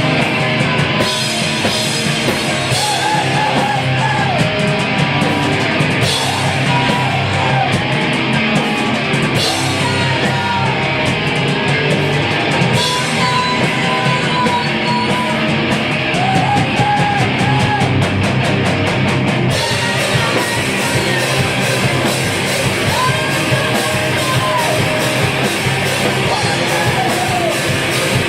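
A hardcore punk band playing live: distorted guitars, bass and pounding drums, with screamed vocals.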